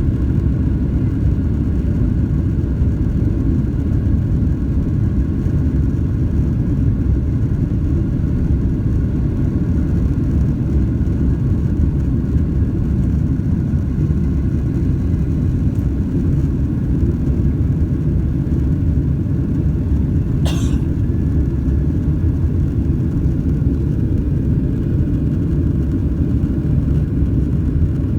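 Steady low rumble of a Boeing 767-300ER's jet engines, with a brief high chirp about twenty seconds in.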